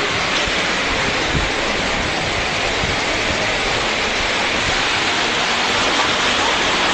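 Steady rushing wash of an indoor fountain's water jets, mixed with the general noise of a shopping-mall atrium.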